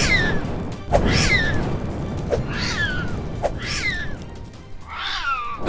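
Animated sound effect of summoned flaming cat spirits: about five cat meows, about a second apart, each falling in pitch, over a low rumbling noise and music.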